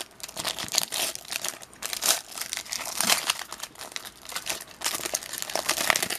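Wrapper of a trading card pack crinkling as it is torn open and handled, in a steady run of irregular crackles.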